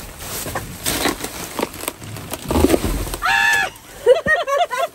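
Scattered knocks and rustling of wet items being handled in a dumpster, then a woman's short high-pitched yelp about three seconds in, followed by a quick run of laughter near the end.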